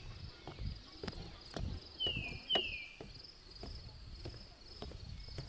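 A forest bird calling two quick downslurred whistles in a row about two seconds in, over a steady high insect trill. Irregular footsteps knock on a wooden boardwalk.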